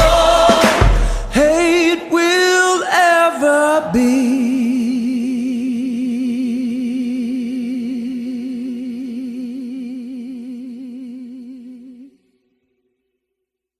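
Closing of a gospel-flavoured rock song. The band drops out about two seconds in under a few sung vocal runs, then one long last note with wide vibrato fades away to silence near the end.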